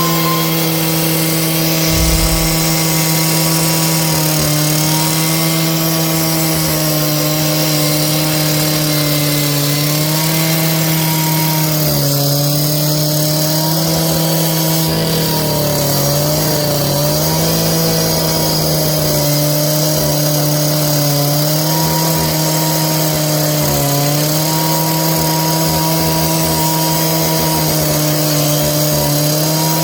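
A small engine running at high speed on a steady pitch that sags briefly now and then, as if under load.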